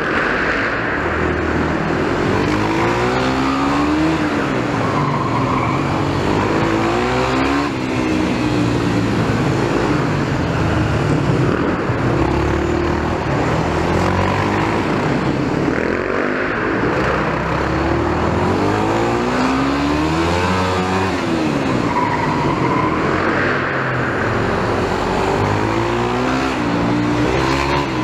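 Yamaha 250 supermoto engine, heard from the rider's helmet, revving up and falling back every few seconds as it accelerates out of the corners and slows into them, held in second gear the whole way.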